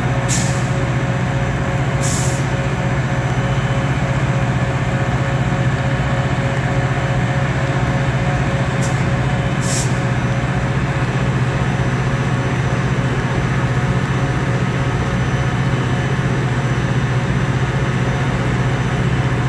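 Caltrain EMD F40PH diesel locomotive standing at the platform, its engine running with a steady loud drone. Short hisses of air, typical of the air brakes, come twice near the start and twice about halfway.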